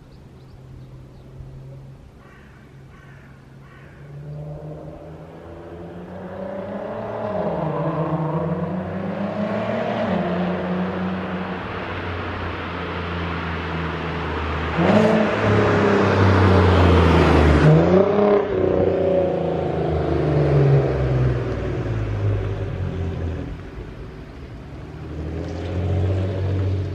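Volkswagen R32's VR6 engine accelerating and revving, its pitch rising and falling through the gears. It grows louder from a few seconds in and is loudest in the middle with a steep climb and drop, as if passing close by.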